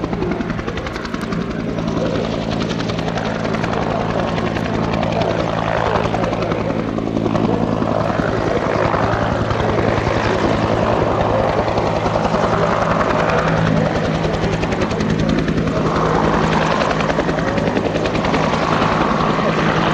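Bell UH-1H Iroquois 'Huey' helicopter in flight: its two-bladed main rotor beating in a fast steady rhythm over the run of its turboshaft engine, loud and even throughout.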